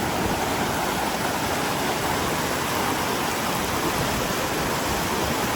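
Waterfall water rushing steadily, an even roar of falling and splashing water.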